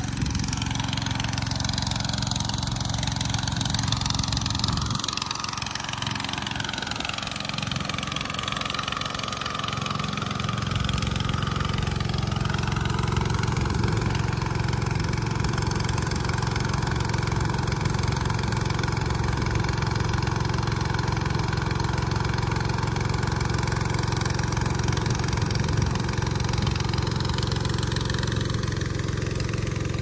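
Engine running steadily at one constant speed, an even low hum that grows a little louder about a third of the way in.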